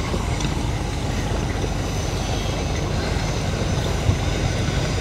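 A fishing boat's big marine diesel engine running hard, just started up after the launch, giving a steady, deep, even rumble.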